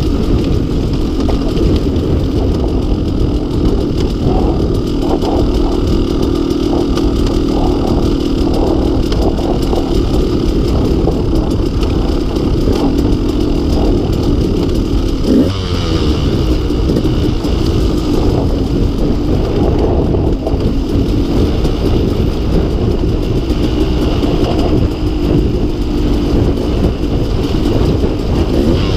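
KTM 200 XC-W's two-stroke single-cylinder engine running at low, gently varying revs, heard from on the bike while riding a dirt trail slowly. The throttle is blipped briefly about halfway through, a quick rise in pitch.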